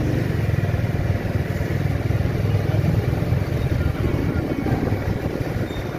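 Motorcycle engine running steadily under way, a low even rumble with a fast pulsing beat.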